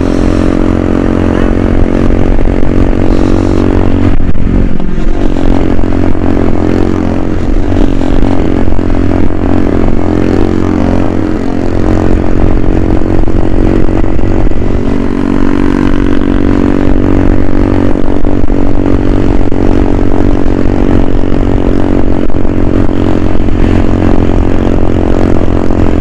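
100 cc single-cylinder motorcycle engine running at cruising speed on the road, a loud steady engine note that wavers briefly about four seconds in.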